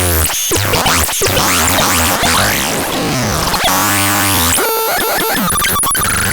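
Chaotic, glitchy electronic sound effects from a novelty toy's sound chip. Buzzing tones, sweeping whistle-like glides and sudden dropouts jumble together, and higher stuttering beeps come in near the end.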